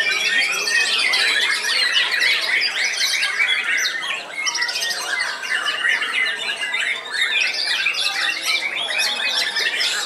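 White-rumped shama (murai batu) singing: a dense, unbroken stream of fast, varied chirps, trills and whistled phrases, overlapping with the song of other caged birds.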